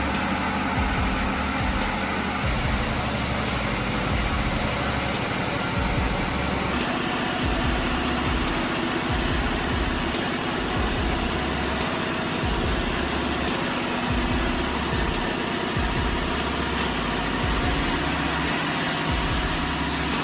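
A heavy machine's engine running steadily, with a shifting low rumble underneath.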